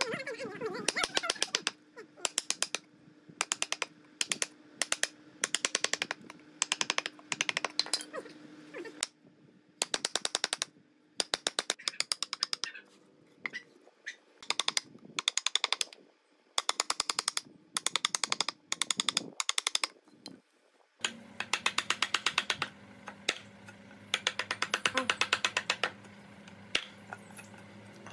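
A chisel being struck into a wooden beam, chopping out a joint: rapid runs of sharp knocks, each run lasting a second or so, with short pauses between.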